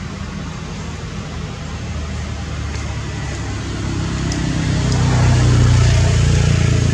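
A motor vehicle's engine running nearby, a low hum that grows steadily louder from about two seconds in and holds near its peak toward the end, as if the vehicle is approaching.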